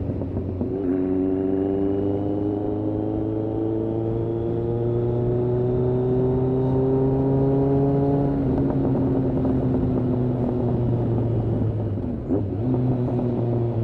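Kawasaki ZRX1200R's inline-four engine on Yoshimura TMR-MJN carburettors pulling under throttle, its pitch rising slowly for about eight seconds. It then drops abruptly and runs on at a lower, steady pitch, with a brief break near the end.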